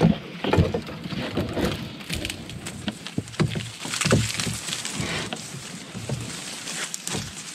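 Dry cattail stalks rustling and crackling as they are grabbed, bent and broken by hand, with a rope dragged through them: irregular crackles and knocks.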